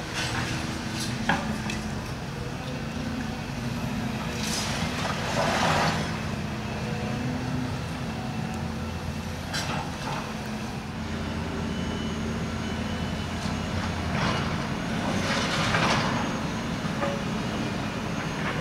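Diesel engine of heavy demolition machinery running steadily. Two longer bursts of noise come about five and fifteen seconds in, with a few sharp knocks between them.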